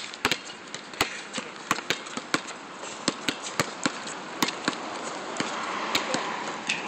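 Basketballs bouncing on an outdoor concrete court as players dribble: sharp, separate thuds, irregularly spaced, one to three a second.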